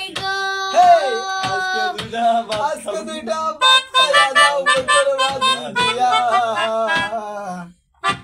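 Melodica played through its mouthpiece tube: a tune of held reedy notes moving from note to note, with sharp taps keeping time. The playing stops abruptly just before the end.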